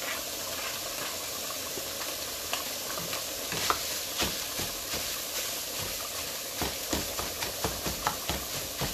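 Ground beef and chopped onion sizzling in a skillet. From about three and a half seconds in, a spatula scrapes and taps against the pan as they are stirred, the strokes coming quicker, about three a second, near the end.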